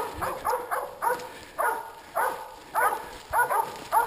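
Cur dogs baying: steady, rhythmic bay barking, about three barks a second and often in pairs, the sound of dogs holding cornered game at bay.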